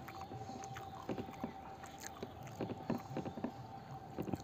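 Eating by hand: fingers gathering rice grains on a plate, heard as a run of short soft clicks and mouth sounds, busiest from about a second in, over a faint steady hum.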